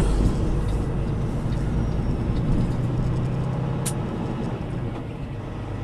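Semi truck's diesel engine running with a steady low drone, heard from inside the cab, with one brief sharp hiss about four seconds in.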